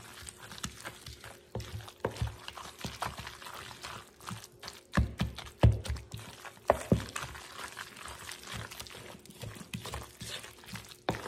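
A spoon stirring a thick, mayonnaise-coated shredded chicken mixture in a bowl: irregular wet squishing with short knocks of the spoon against the bowl.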